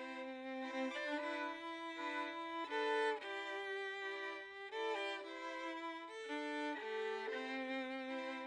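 Background music of bowed strings: a violin melody over held lower notes, the notes changing every second or so.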